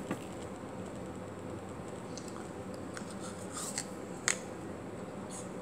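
Someone biting and chewing food close to the microphone, with a few short sharp clicks, the loudest about four seconds in, over a steady low hum.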